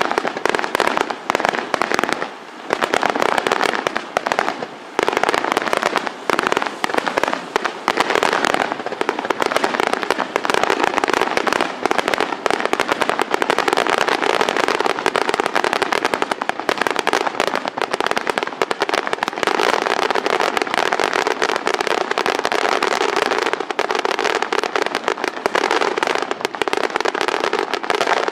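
Fireworks display: rapid bangs and crackling bursts, at first with brief gaps. From about eight seconds in they merge into a dense, unbroken barrage of reports.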